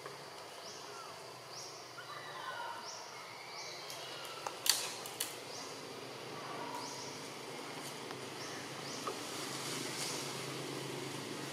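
Forest ambience: a high insect call repeating about once a second, with a few short chirps in the first half. About halfway through come two sharp clicks, the loudest sounds.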